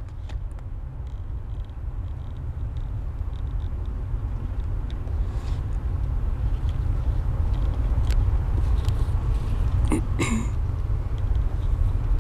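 Low outdoor rumble growing steadily louder, with a few faint clicks and a brief voice-like sound about ten seconds in.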